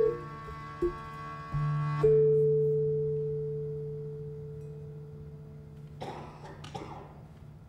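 Javanese gender, a bronze-keyed gamelan metallophone in pelog tuning, struck with padded disc mallets: a few closing notes, the last a two-note stroke about two seconds in, left to ring and slowly fade. A few short noisy sounds follow near the end.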